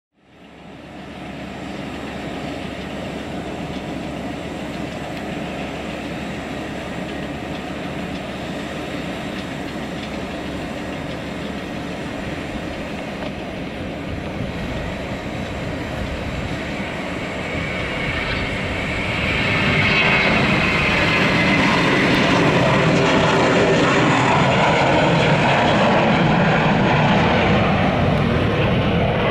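Airbus A321-231's twin IAE V2500 turbofan jet engines at takeoff thrust: a steady jet noise that swells sharply about eighteen to twenty seconds in, as the airliner rolls down the runway and lifts off, and gains a strong high-pitched rushing hiss.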